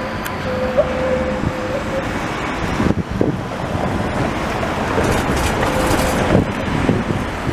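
Two-car ČKD Tatra tram running through a curve of street track close by: a steady hum for the first couple of seconds, then louder clatter of wheels on the rails, with a few knocks, as the cars pass.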